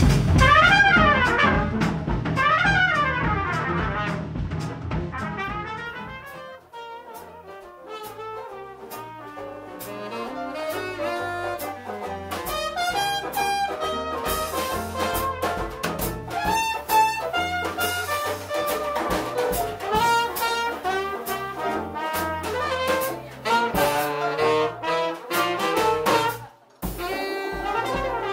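Small New Orleans-style jazz band playing live: trumpet, saxophone, piano, banjo, bass and drums. The full ensemble drops back after about six seconds to a softer solo over stepping bass notes, and the trumpet comes in again loudly near the end.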